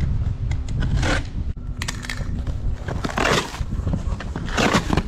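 Utility knife slitting the packing tape of a cardboard shipping box, then the cardboard flaps being pulled open, scraping and rustling in several short bursts about one, three and four and a half seconds in.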